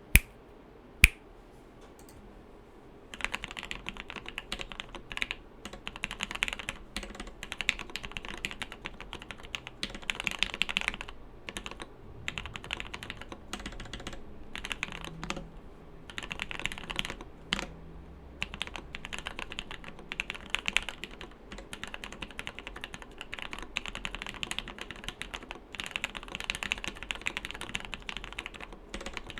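Typing on a Samice mechanical keyboard, which has an aluminium bottom case, a top-mounted aluminium plate, and lubed, filmed Gateron Full Milky Yellow linear switches. There are two sharp single clicks at the start. From about three seconds in comes a fast, continuous patter of key strokes with brief pauses. The uploader finds the board's sound a bit too muted.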